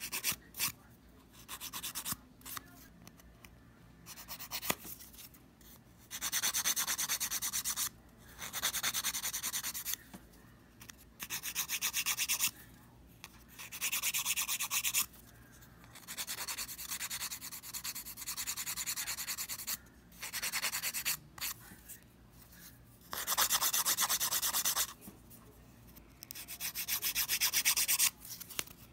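Hand nail file rasping across fingernail tips to shape them, in about a dozen bouts of quick back-and-forth strokes, each lasting one to four seconds, with short pauses between.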